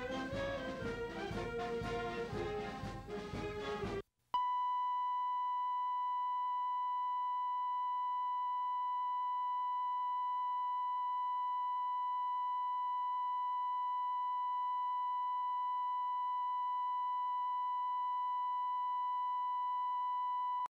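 A brass band playing, cut off suddenly about four seconds in. After a brief gap comes a steady, unchanging test tone, the reference tone laid down with color bars on a video tape, which stops abruptly near the end.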